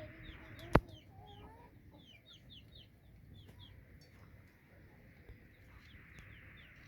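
Aseel chicks peeping in a run of short, high, falling cheeps, after a hen's low wavering calls near the start. A single sharp click about a second in is the loudest sound.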